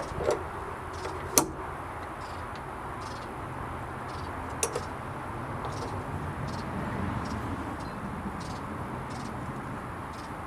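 A few sharp clicks and knocks from latch hardware and tools being handled: one loud click early on and a quick double click a little before the middle. Behind them is steady outdoor background noise with faint, short, high chirps repeating.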